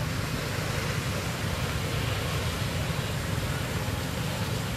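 Steady low background noise with a hiss over it, unchanging throughout, with no distinct calls or knocks.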